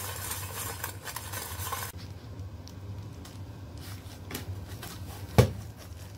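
Kitchen handling noise: fried chicken pieces scraping and rattling in a stainless steel bowl, with light clinks of dishes and one sharp knock about five seconds in, over a low steady hum.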